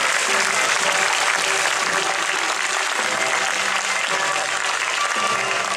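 Crowd applauding steadily, with faint steady music beneath.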